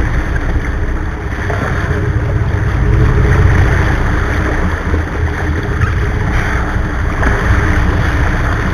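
Water churning and splashing as a hooked blue marlin thrashes at the side of the boat, over a steady low rumble from the boat and wind on the microphone.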